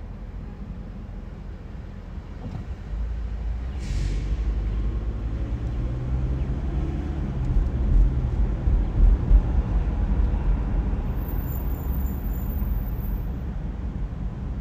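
Low rumble of a car driving, heard from inside the cabin: it grows as the car pulls away from a stop and gathers speed. A short hiss comes about four seconds in.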